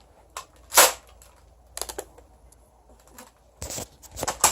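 Scattered sharp clicks and knocks of hard objects being handled: a loud one about a second in, another a second later, and a quick run of clicks near the end.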